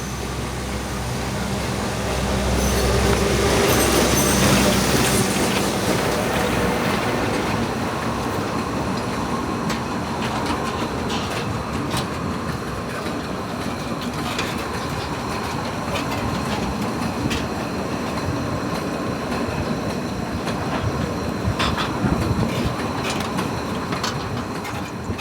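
Narrow-gauge sugar cane railway train hauling raw sugar wagons past, with a heavy rumble loudest a few seconds in. Then the wagons keep rolling by with clicking wheels and some squeal, tapering off near the end.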